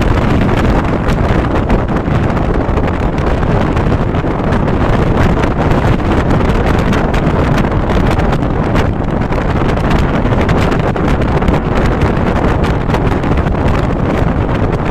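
Wind blowing hard across the microphone at an open window of a moving passenger train, over the train's steady running rumble.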